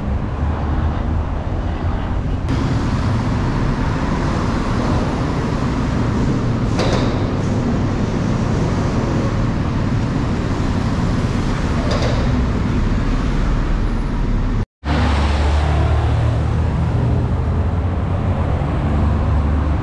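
Steady road traffic noise from cars and buses passing along a busy street, with a low engine rumble underneath. The sound cuts out completely for an instant about three-quarters of the way through.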